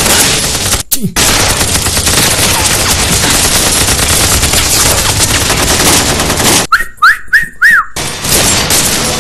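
Sustained battle gunfire: rifles and machine guns firing in a dense, continuous barrage, with a brief lull about a second in. Near the end the firing breaks off for about a second while four short whistling tones sound, then it picks up again.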